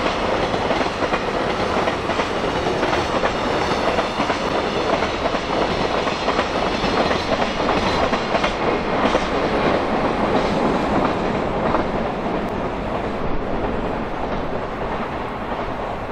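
Wheels of a JR Freight train's Koki container flatcars rolling past on the rails, with irregular clicks. The sound eases off over the last few seconds as the tail of the train goes by.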